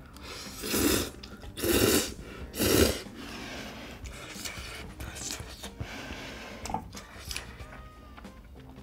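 A person slurping ramen noodles from budae-jjigae: three loud slurps about a second apart, followed by quieter chewing with small mouth clicks.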